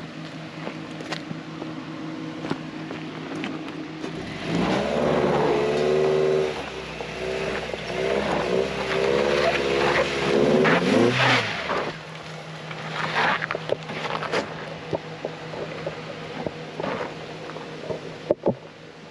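Off-road vehicle engine idling, then revving hard and unevenly for several seconds while climbing over rock, before settling back to a steady run. Scattered knocks and scrapes, with a sharp knock near the end.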